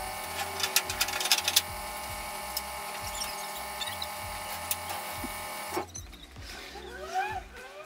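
Scattered metal clicks and knocks as dirt bikes are secured on a trailer, over a steady hum. About three-quarters of the way through, the sound cuts to a quieter background with a few short rising whines.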